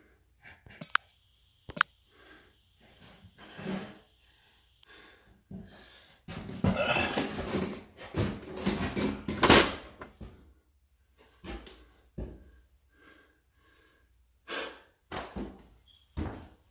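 Sporadic demolition noise from a cabinet being torn out: a couple of sharp knocks about a second in, then several seconds of loud scraping and clattering noise in the middle, and a few scattered knocks near the end.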